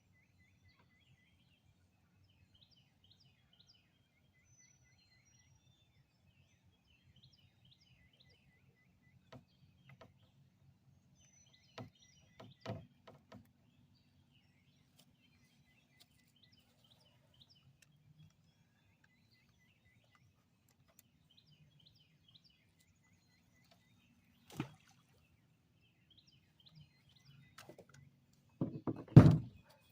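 Wild birds chirping faintly and steadily over a low rumble, with a few scattered knocks and a loud cluster of knocks and thumps near the end.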